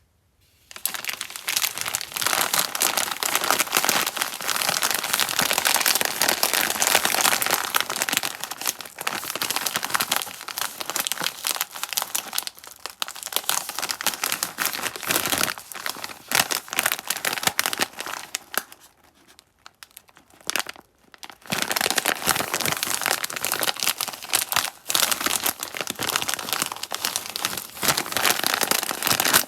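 Candy wrappers being crinkled and torn open by hand, a dense, continuous crackling, with a brief lull about two-thirds of the way through before the crinkling starts again.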